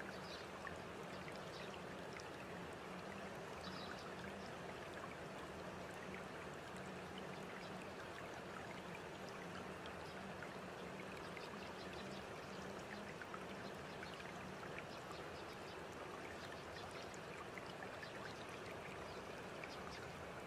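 Steady rushing noise like running water, with a faint low hum and scattered light ticks underneath.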